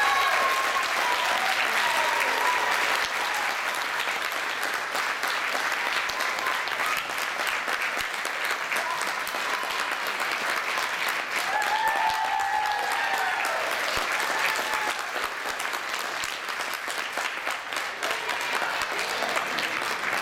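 Audience applauding, a dense continuous clapping that eases off slightly toward the end, with a few voices calling out over it at the start and again about twelve seconds in.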